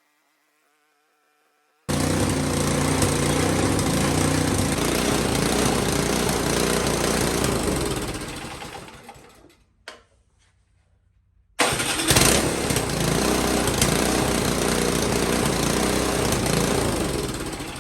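Powersmart 24-inch snow blower's 130cc single-cylinder engine running steadily, now that its cleaned carburetor lets it run. It comes in twice: each time it starts suddenly at full level and fades out, with a short silence between.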